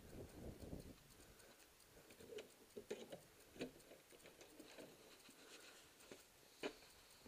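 A few faint clicks and knocks of a metal door latch being worked as a plywood shed door is opened.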